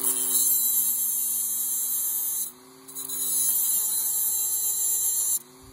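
Dremel rotary tool with a cut-off wheel grinding through a threaded bolt to cut it to length: a high grinding hiss over the tool's steady motor whine. The cutting breaks off briefly about two and a half seconds in, resumes, and stops near the end.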